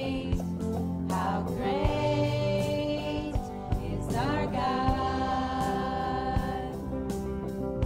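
Live church worship band playing a song: women's voices singing long held notes that slide up into each new phrase, over electric guitar, bass guitar and a drum kit.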